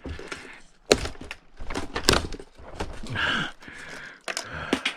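Parts of a dishwasher being pulled and worked loose by hand, with a few sharp clacks and cracks about a second apart.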